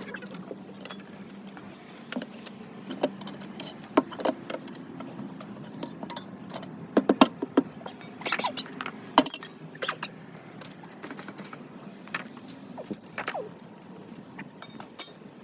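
Metal hand tools clinking and knocking on a tractor tyre and its steel rim, in irregular sharp clicks that bunch together a little past the middle, over a low steady hum.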